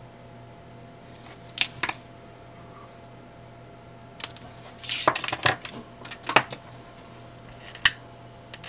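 Scissors snipping ribbon several times in quick succession, with small handling clicks and knocks before it. Near the end comes one sharp click of a long-nosed butane lighter being lit to heat-seal the cut ribbon ends.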